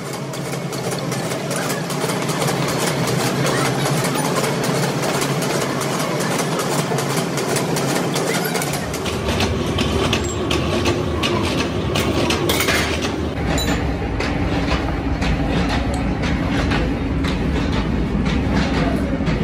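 An old machine tool runs while cutting grooves into a steel tractor rear axle half shaft, making a steady, rapid, rhythmic clatter. A low rumble joins in about nine seconds in.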